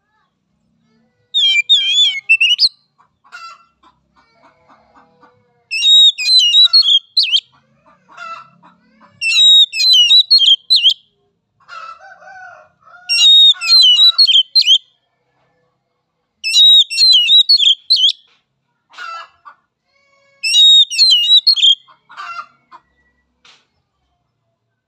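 Oriental magpie-robin (kacer) singing six loud bursts of fast, high warbling song, each about a second and a half long and coming about every four seconds, with fainter, lower calls in between.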